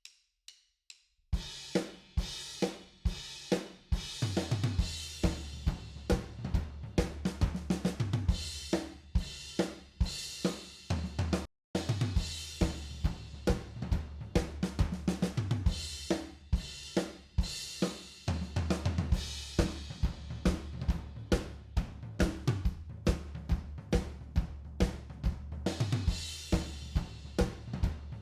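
Live drum kit playing a fast drum-and-bass groove, with kick, snare, hi-hat and cymbals, over a steady bass line. A few faint clicks lead in before the groove starts, and it breaks off for an instant about halfway through.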